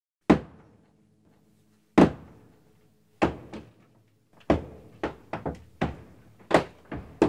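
A series of sharp knocks with short ringing tails. Three come singly, well spaced, after a brief silence, then they come faster, two or three a second toward the end.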